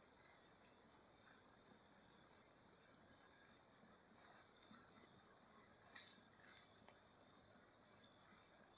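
Faint, steady high-pitched trilling of insects such as crickets in the woods.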